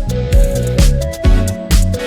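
Background music with a steady electronic beat and sustained pitched notes.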